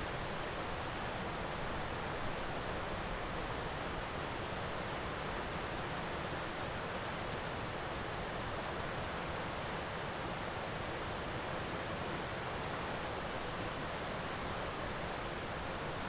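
Steady, even rushing background noise with no bird calls in it.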